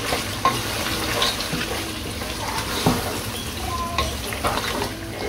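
Spiced beef curry with tomatoes and yogurt sizzling as it fries in a pot, being stirred, with a few sharp clicks of the spoon against the pot. It is the frying-down stage of a kala bhuna, with the meat half cooked.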